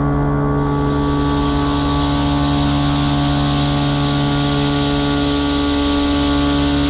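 CNC milling machine running steadily while a chamfer mill cuts Monel K500: an even hum with a hiss that comes in about half a second in.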